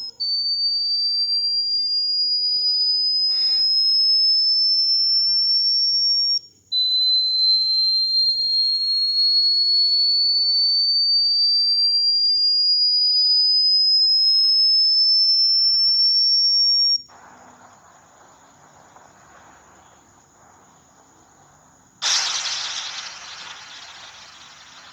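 A high-pitched, pure whistle-like tone played as a weird sound, rising slowly in pitch in two long sweeps that each cut off abruptly. After it stops there is a faint hiss, then a sudden louder hiss near the end that fades away.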